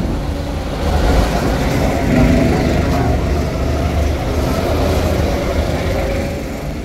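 Go-karts running on the track, one passing close by: the kart's motor sound swells about a second in, holds, and eases off near the end.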